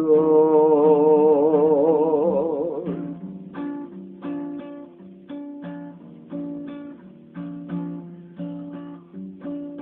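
A male singer holds the last word of a line on a long note with vibrato for about three seconds, then an acoustic guitar carries on alone, picking a steady run of chords over changing bass notes.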